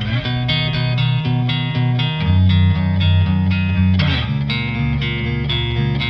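Background music led by guitar, with a steady beat and a bass line.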